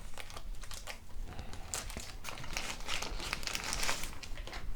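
Plastic packaging crinkling and crackling in irregular bursts as it is handled, while a computer part's accessories are unwrapped.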